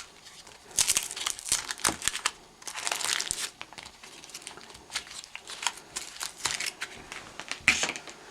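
Wrapping being peeled and pulled off a homemade wooden rosin mold, crinkling and tearing in irregular bursts, loudest about a second in, around three seconds in and near the end.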